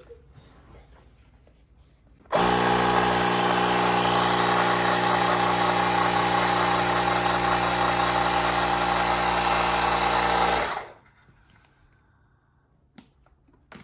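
Cordless handheld tire inflator's compressor motor running steadily for about eight seconds, switching on abruptly a couple of seconds in and cutting off shortly before the end.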